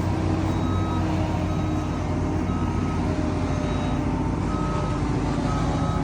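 Concrete mixer truck's diesel engine running steadily while its reversing alarm beeps about once a second.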